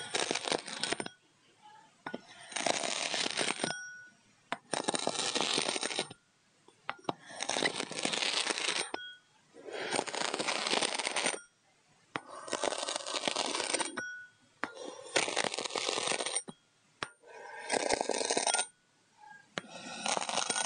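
Kinetic sand being sliced with a knife in about nine slow, even strokes, each a grainy scraping hiss of about a second and a half, with short pauses between them.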